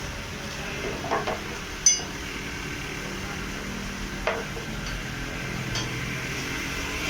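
Metal hand tools and parts clinking and knocking during work on a car's front suspension, with one sharp ringing clink about two seconds in and a duller knock a couple of seconds later, over a steady low hum.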